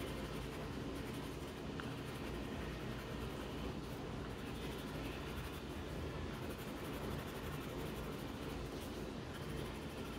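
Dark brown pencil scratching faintly and steadily on paper as small patches of stones are drawn in.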